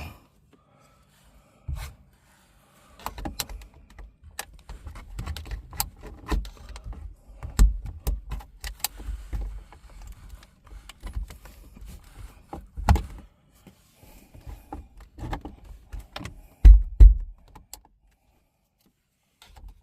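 Pry tool working a dash cam wire into car interior trim: irregular clicks, scrapes and light knocks, with a few heavier thumps spread through.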